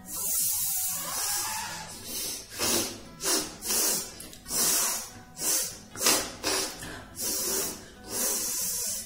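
Repeated forceful nose blowing: about a dozen hissing blasts of air out through the nose, some drawn out, others short and quick.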